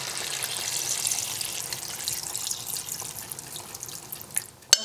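Thin coconut milk pouring in a steady stream from a plastic measuring jug into a wok of chicken curry, a watery splashing that slowly fades toward the end. A couple of light knocks come near the end.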